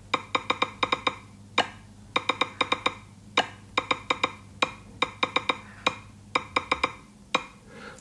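Gboard's key-press sound playing from an Android phone's speaker as keys are tapped: runs of quick, typewriter-like clicks, broken by a few single, different-sounding clicks from the space bar.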